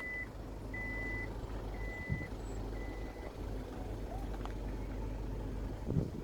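A vehicle's reversing beeper sounding in evenly spaced half-second beeps about once a second, which stop a few seconds in, over the low steady rumble of an idling engine. A short thump near the end.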